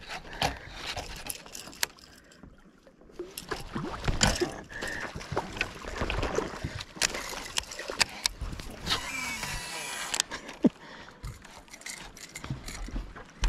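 Scattered knocks and clicks of fishing gear and hands against a small boat, over low water and wind noise. A short rush of hiss lasts about a second and a half, starting about nine seconds in.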